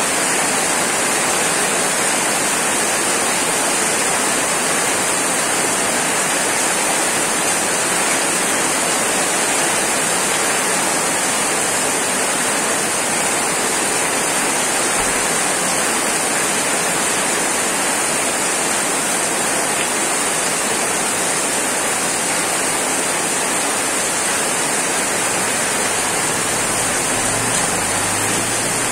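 Heavy tropical rain pouring down on a paved street, a loud, steady hiss of rain. Near the end a motorbike passes close by with a low engine hum under the rain.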